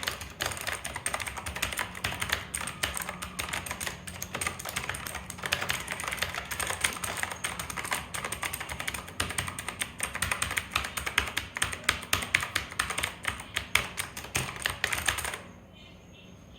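Fast, continuous typing on an HP GK320 fully mechanical keyboard with clicky switches, a dense clatter of key clicks that stops abruptly about a second before the end.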